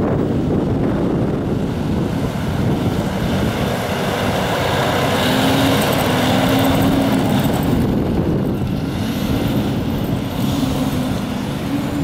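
Fire engine idling close by: a steady low running noise with a faint steady hum that comes and goes.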